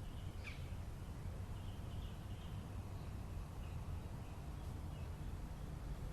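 A few faint, short bird chirps over a steady low rumble.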